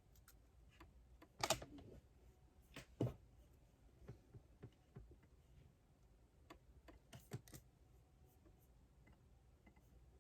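Faint, irregular keystrokes on a computer keyboard, a few scattered clicks rather than steady typing. The loudest come about one and a half and three seconds in, with a short cluster near the end.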